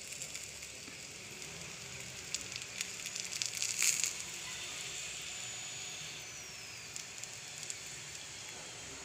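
Thin batter wrapper sizzling in a hot nonstick frying pan: a steady soft hiss with light crackles, and a brief run of louder pops about three to four seconds in.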